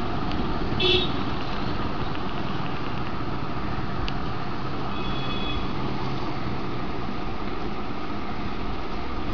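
Steady background traffic noise with a short horn toot about a second in and a faint beep at about five seconds.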